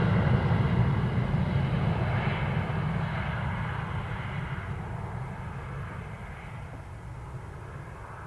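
Embraer 175 jet's twin GE CF34-8E turbofans at takeoff power, fading steadily as the aircraft rolls away down the runway. The high-pitched part of the engine noise dies away first.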